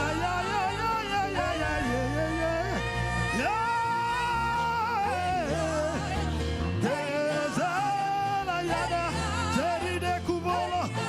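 Gospel worship music: a singer holding long, wavering, gliding notes without clear words over sustained keyboard chords and bass.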